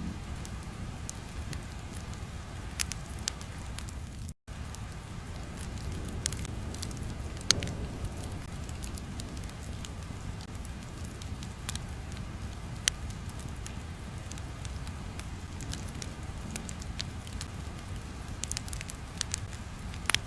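Crackling fire: a steady low rumble with sharp pops and crackles at irregular intervals. The sound cuts out for a split second about four seconds in.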